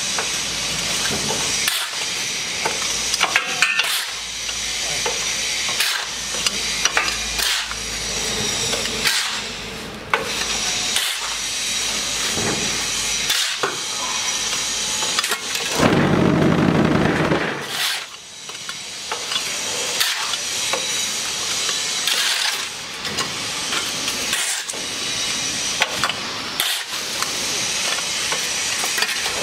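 A steel shovel scraping and pushing damp concrete mix across the mould box of a concrete hollow-block machine, a steady gritty scraping broken by frequent clinks and short pauses between strokes. A little past halfway, the machine gives a brief, louder low rumble lasting about a second and a half.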